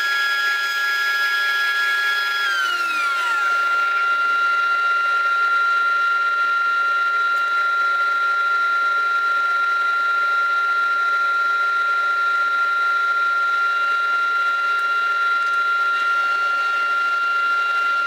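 Spindle moulder running with a steady high whine. About two and a half seconds in, its pitch slides steeply down, and a steady, slightly lower whine carries on after.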